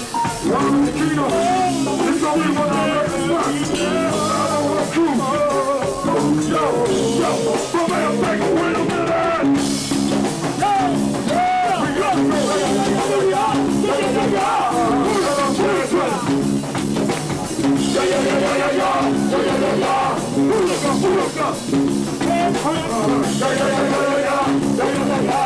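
Go-go band playing live: a steady, repeating drum and bass groove with a vocalist singing over it through a microphone.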